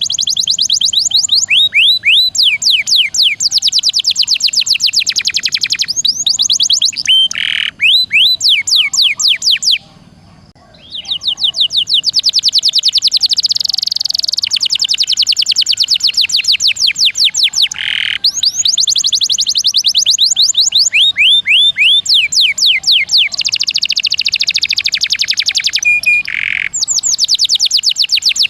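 Domestic canary singing continuously in fast rolling trills of rapid, repeated downward-sweeping notes, broken by short gaps and a pause of about a second near ten seconds in.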